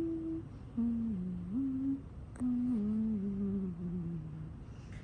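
A woman humming a slow tune in held notes that step up and down, with short breaths between phrases and a single sharp click about two and a half seconds in.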